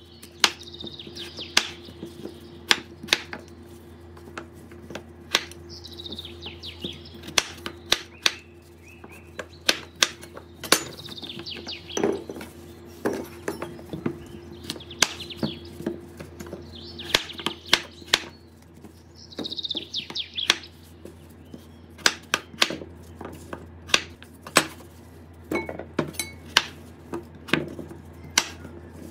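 Kitchen utensils knocking and clinking against dishes and a work surface, with irregular sharp knocks about one or two a second. Short bird chirps come in several times in the background.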